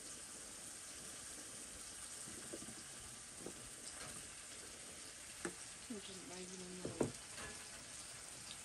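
Food sizzling steadily in a wok over a portable gas burner, with a metal spatula clinking and scraping against the wok a few times, the loudest clink about seven seconds in.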